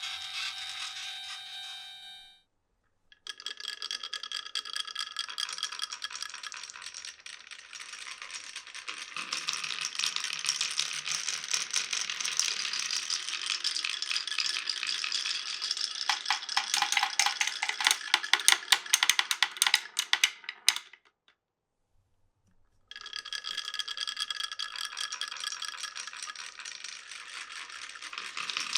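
Glass marbles rolling and clattering along a marble run track: a dense, steady rattle of many small clicks with a ringing tone. The rattle breaks off twice, briefly a couple of seconds in and for about two seconds near the end, then starts again.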